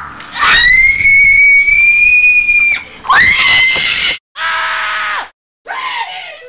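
A man screaming at full voice, four times: two long high-pitched screams, then two shorter ones that drop in pitch at the end.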